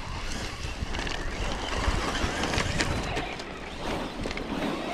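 Wind rumbling on the microphone, with scattered sharp ticks and clicks over it.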